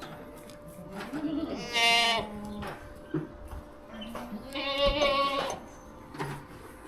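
Goats bleating twice, each a long wavering call, over a faint steady hum.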